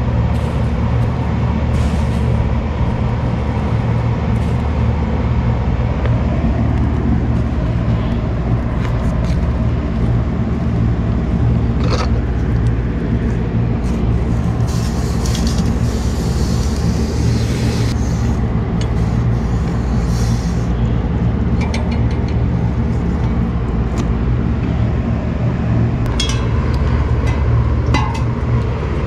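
A machine running steadily with a low hum, with a few sharp metallic clinks of tools and hose fittings and a brief hiss about halfway through.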